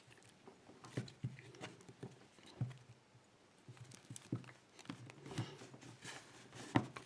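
Small blade of a Leatherman multitool cutting and scraping at the plastic sheath of a bicycle cable lock: faint, irregular scrapes and clicks.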